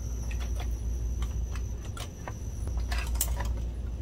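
Light clicks, taps and clinks of plastic and metal projector parts being handled as the optical assembly is worked loose from the chassis, loudest about three seconds in, over a steady low hum.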